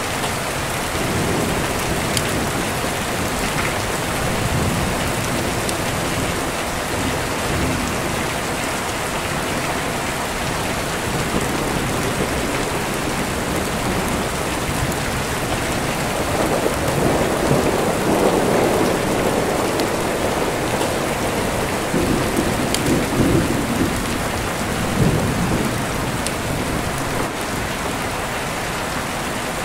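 Steady heavy rain with deep rolling thunder rumbling on and off, swelling loudest a little past the middle and rumbling again shortly after.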